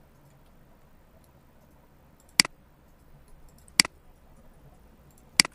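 Three sharp computer mouse button clicks, about a second and a half apart.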